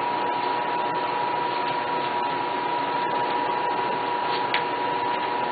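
Steady hiss with a constant high-pitched tone running through it, unchanging throughout.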